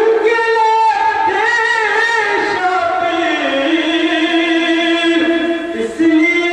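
A man singing a devotional manqabat in praise of Ali solo into a microphone, in long held notes that waver and bend in pitch. There is a brief break near the end before the next phrase begins.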